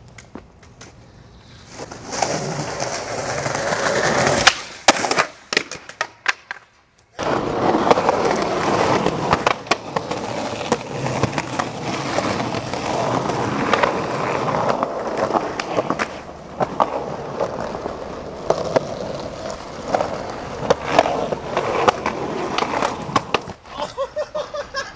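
Skateboard wheels rolling steadily on concrete, with a quick run of sharp clacks from the board about five seconds in and scattered knocks later. The sound cuts out briefly about seven seconds in, then the rolling picks up again.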